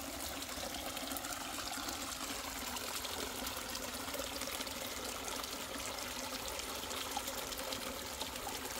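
A small stream running steadily, full with rainy-season water.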